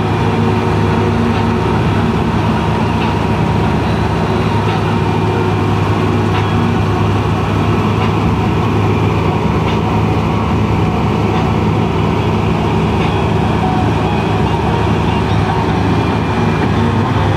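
Combine harvester running steadily while it cuts grain: a loud, even mechanical drone with several steady hum tones from its engine and the running header, belts and threshing gear.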